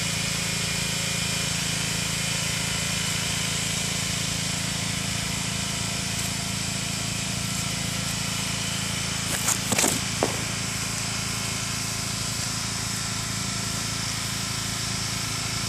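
Pressure washer running steadily, a constant mechanical drone made of several held tones. A few brief knocks stand out over it about ten seconds in.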